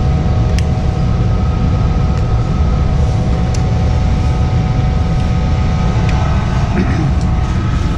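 Lennox EL296 gas furnace running: a steady, loud low rumble with a constant motor hum over it, and a few light clicks.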